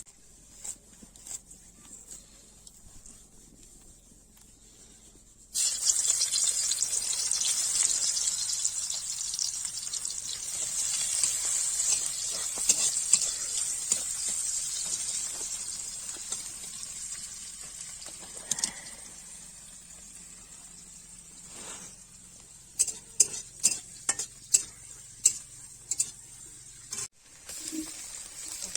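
Food frying in hot oil in a cooking pan: the sizzling starts suddenly about five and a half seconds in, then fades slowly. Near the end come a run of sharp clicks, like a metal utensil knocking against the pan.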